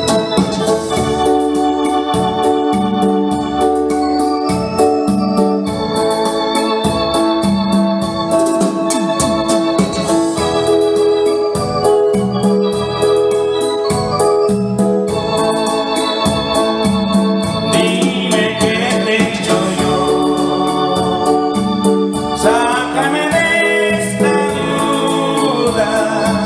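Keyboard-led music, organ in sound, playing sustained chords over a steady beat.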